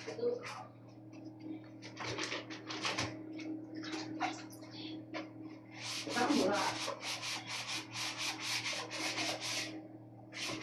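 Rough rubbing or scrubbing strokes made by hand, scattered at first, then a steady run of about three to four strokes a second from about six seconds in, over a faint steady hum.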